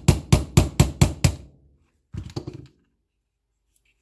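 Hammer striking a pin punch to drive the rear frame pin into a Grand Power pistol frame, sharp metal taps about four a second that stop about a second and a half in. A quicker run of lighter taps follows around two seconds in.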